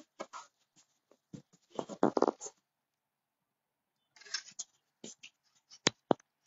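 Handling noise from the phone doing the filming: scattered scrapes and rustles, loudest about two seconds in, then another short burst about four seconds in and two sharp clicks near the end.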